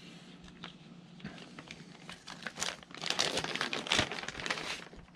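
Packaging of a tailgate-assist shock kit being handled and unfolded, crinkling and rustling in irregular bursts from about halfway in.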